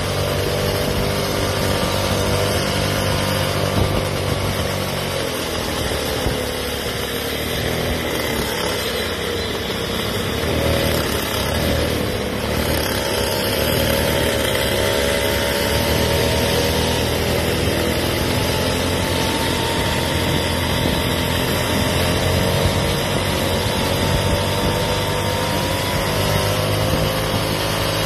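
Small gas engines of stand-up motor scooters running while riding, the engine pitch dipping a few seconds in and rising again, over wind and road noise.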